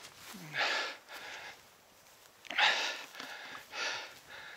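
A hiker breathing heavily close to the microphone while climbing: three loud, noisy breaths a little over a second apart, the first with a short low grunt.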